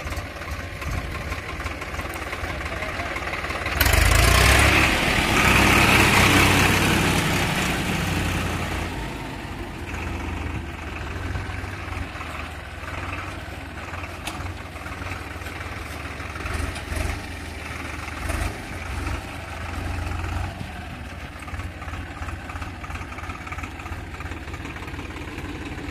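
Swaraj 735 FE tractor's three-cylinder diesel engine running as the tractor drives slowly along a dirt track. It gets suddenly much louder about four seconds in and stays loud for several seconds as the tractor goes by close.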